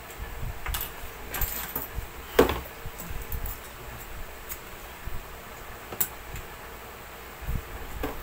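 Small metal tools clinking and tapping as they are picked up and handled on a work table, with one louder knock about two and a half seconds in.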